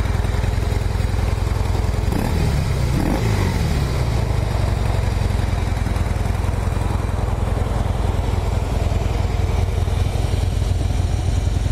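A 2013 Harley-Davidson Breakout's air-cooled 103 cubic inch V-twin idles steadily through its stock exhaust, which runs fairly quiet. Engine speed rises and falls once, briefly, about two to three seconds in.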